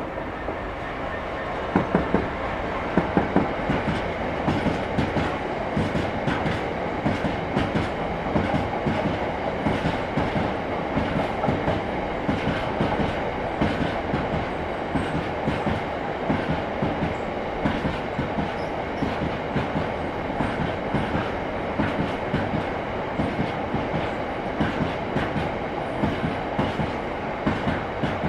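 Freight train rolling past, its wagon wheels clicking and clattering over rail joints in a quick, irregular rhythm.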